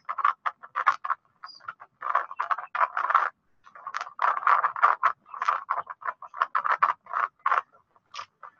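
Wind buffeting an action camera's microphone, coming through as choppy, uneven gusts of noise that cut in and out.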